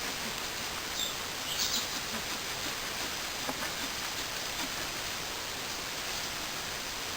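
Steady outdoor background hiss, with a small bird giving short high chirps about a second in and again just after.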